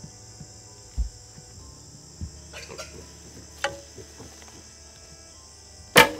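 Steady high-pitched chorus of insects, with soft rustles and a couple of low thuds from a hunter stalking through brush. About six seconds in comes one sudden loud crack, the loudest sound.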